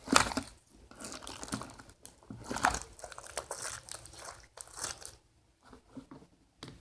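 Homemade glue slime being squeezed and stretched by hand, giving irregular sticky crackles and squelches, loudest at the start and dying away near the end.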